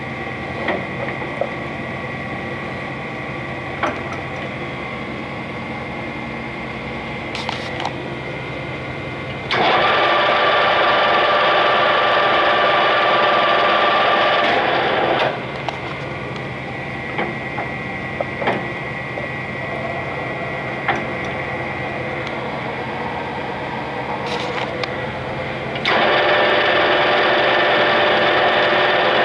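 Clausing Colchester 8031 engine lathe running under power, its spindle and three-jaw chuck turning with a steady mechanical whine and gear noise. The sound grows clearly louder and whinier twice: about ten seconds in for some five seconds, and again a few seconds before the end.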